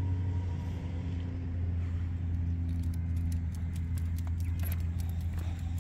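A vehicle engine running steadily with a low hum. Light rapid clicking and jingling joins in about halfway through.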